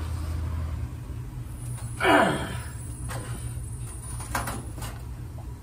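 A seized anode rod being wrenched on top of a water heater, with the whole tank shifting: one loud falling creak about two seconds in, then a few light knocks. A steady low hum runs underneath.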